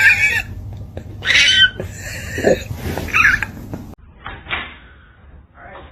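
Cat meowing: a few high, bending yowls over the first four seconds. Then, after an abrupt change in the sound, short bursts of noise.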